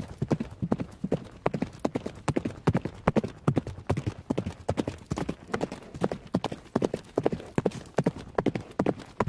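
Horse hoofbeats: hooves striking the ground in a steady, continuous run of several strikes a second.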